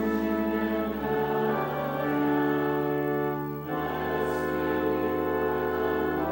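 Church organ playing held chords, the harmony changing about a second in and again near four seconds.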